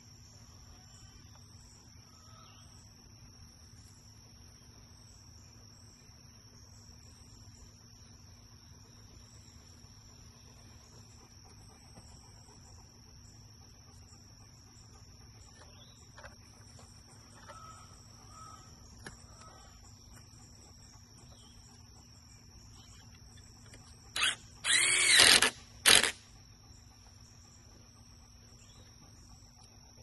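Near the end, a cordless drill runs in three quick goes: a short blip, about a second of running that speeds up and slows down, and another short blip, driving a screw into a scrap-wood trellis board. A steady faint insect chirring runs underneath.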